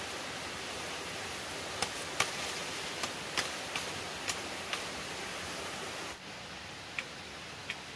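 Machete chopping a bamboo stem: a string of short, sharp knocks at irregular intervals over a steady hiss.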